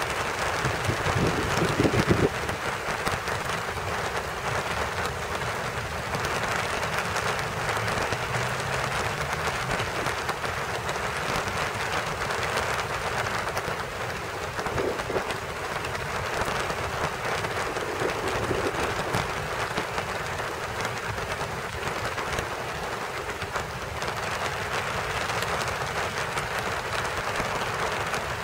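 Steady rain falling on rose bushes and leaves, an even hiss of many drops, with a low rumble underneath. Wind buffets the microphone in the first two seconds.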